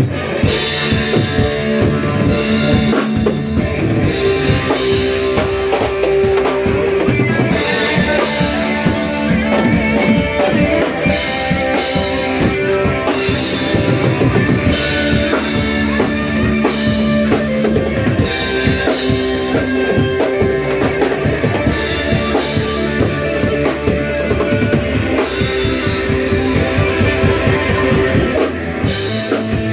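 A band playing rock music with a drum kit and guitar, in a repeating pattern of held notes every few seconds.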